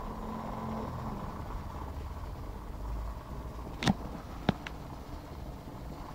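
Two sharp knocks about half a second apart, roughly four seconds in, over a steady low rumble.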